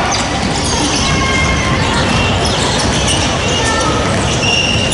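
Basketball game sound on a hardwood gym court: scattered short, high sneaker squeaks over a steady din of players' and bench voices.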